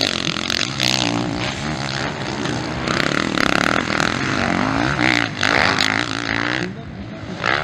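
Motocross bike engines revving hard and backing off over and over, their pitch rising and falling as riders work through a corner and over a jump.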